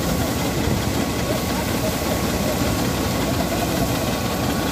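An engine running steadily at a constant speed, with faint voices underneath.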